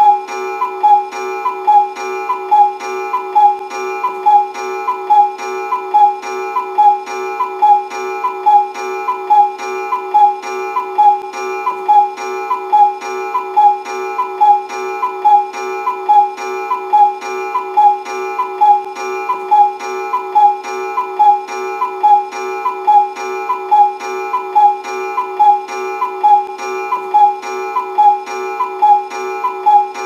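Looped cuckoo clock sound effect: an evenly repeating clock pattern over a steady held tone, unchanging throughout.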